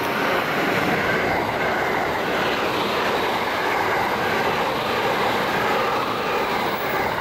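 JR West 681 series electric limited-express train, two sets coupled, running past at speed: a steady, loud rush of wheels on rail as the cars go by.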